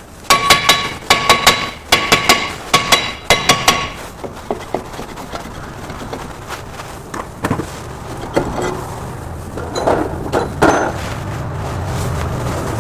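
A hammer striking metal about a dozen times in quick pairs, each blow ringing; this is the kind of hammering done on steel parts during a front wheel-bearing replacement. Lighter knocks of tools follow, and a low steady hum comes in about halfway through.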